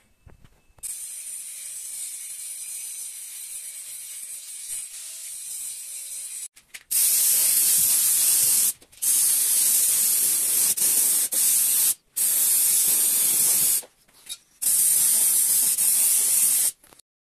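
Paint being sprayed onto a steel frame. A quieter steady hiss runs for the first several seconds, then come four loud hissing bursts of one to three seconds each, with short breaks between them.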